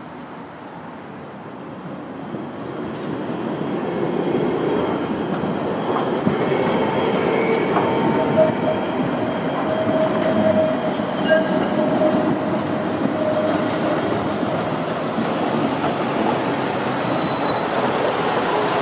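Tram approaching and running past, growing louder over the first few seconds, then staying loud, its wheels squealing against the rails in thin steady tones that come and go.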